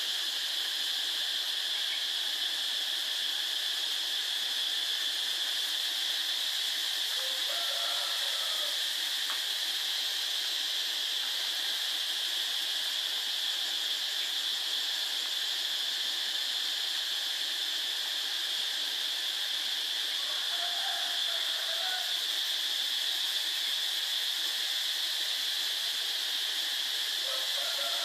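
Steady, even high-pitched hiss throughout, with three faint, short kitten mews: about eight seconds in, about twenty-one seconds in, and near the end.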